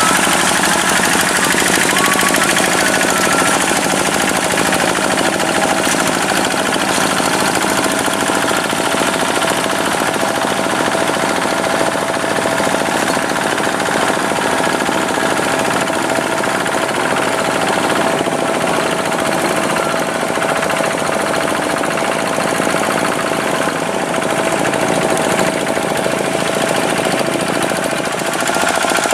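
Tractor engine running steadily under work, with a constant high tone over the engine noise.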